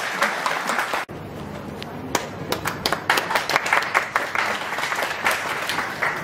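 A roomful of people applauding, with dense, steady clapping that is cut off abruptly for a moment about a second in before it carries on.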